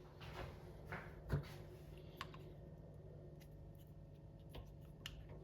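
Quiet room with a steady low hum and a few faint, scattered clicks and knocks; the most distinct knock comes about a second in.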